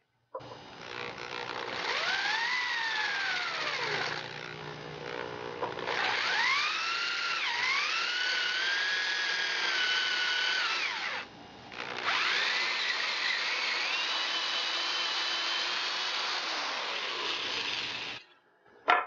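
Power drill boring a 3/8-inch hole through a wooden crossbow stock; the motor's whine rises and falls in pitch as the bit loads in the wood, eases off for a couple of seconds, stops once briefly, then runs on until it stops shortly before the end. A single sharp knock follows.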